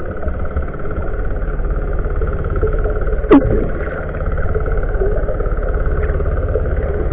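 Steady, muffled drone of a boat engine carried through the water and heard from underwater, with a fine even pulsing. A single sharp knock about three seconds in is the loudest sound.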